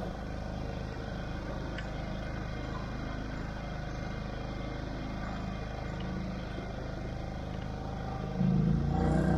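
A boat motor running steadily at trolling speed, a low, even drone mixed with wind and water noise. Near the end a louder low rumble comes in.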